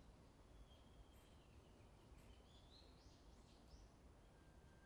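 Near silence: faint outdoor ambience in which a distant bird sings a short run of high chirps a couple of seconds in.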